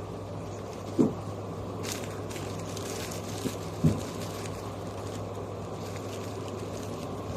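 Steady low hum with two dull thumps, about a second in and about three seconds later.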